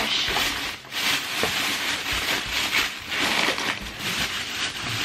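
A thin plastic bag crinkling and rustling in irregular surges as it is shaken open and fitted over the rim of a plastic rubbish bin.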